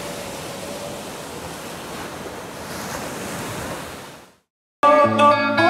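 Sea surf breaking and washing up a sandy beach, a steady rushing wash that fades out about four seconds in. Loud music starts near the end.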